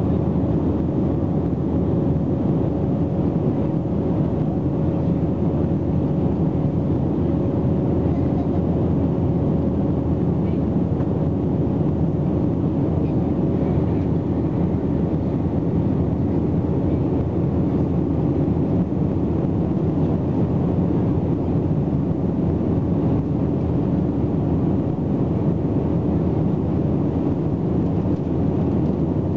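Airbus A321 cabin noise while climbing out after takeoff: the steady rush of the jet engines and airflow, heavy in the low end, with a faint steady tone running through it.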